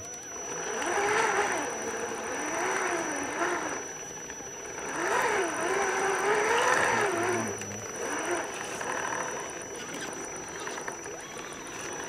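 Electric drive of a radio-controlled scale crawler whining as it creeps along, its pitch rising and falling as the throttle is eased on and off. A thin steady high tone runs underneath.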